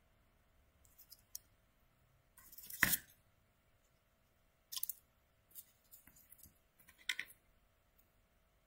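Small scissors snipping thin paper in a handful of short, separate cuts. The loudest cut comes about three seconds in.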